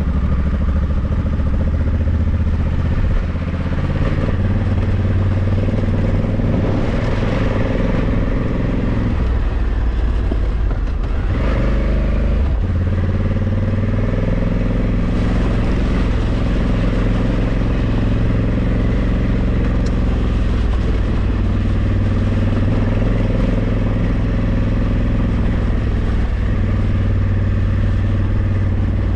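Honda Africa Twin 1100's parallel-twin engine running as the motorcycle rides along, at a fairly steady pitch. Around ten to twelve seconds in the note breaks up and changes pitch before settling again.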